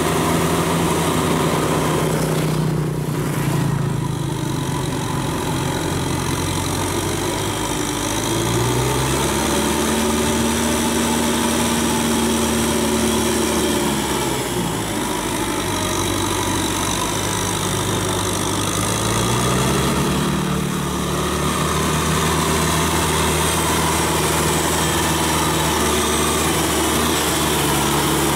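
Kubota tractor's diesel engine running as it pulls a rotary tiller through the paddy. The engine note rises about nine seconds in, drops around fourteen seconds and rises again near twenty seconds.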